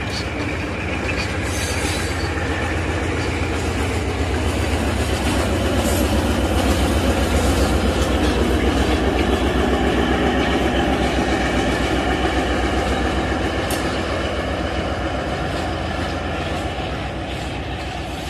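Steam-hauled vintage passenger train moving past on the rails, its wheels and carriages clattering in a rapid rhythm. It grows louder to a peak about halfway through, then fades.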